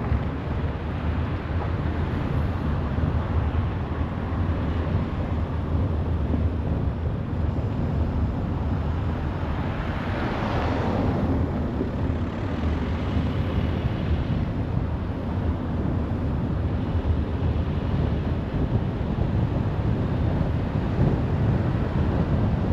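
Highway traffic: a steady low rumble of cars and tyres on the road, with one vehicle passing close by about ten seconds in.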